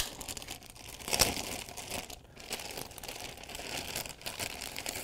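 Thin plastic bag crinkling and rustling as it is handled, with a louder rustle about a second in.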